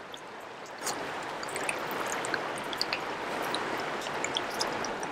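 Shallow river water running and trickling around a landed fish in a net, with small scattered splashes; it grows a little louder about a second in.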